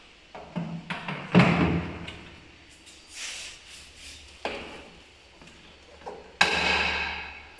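Knocks and clatter from handling the Kärcher WD3 vacuum cleaner and its parts: several separate knocks, the loudest about a second and a half in, then near the end a sharp clank that rings for about a second.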